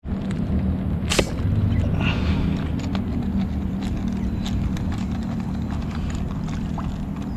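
A slingshot fired once at a fish, a single sharp snap about a second in, over a steady low rumble.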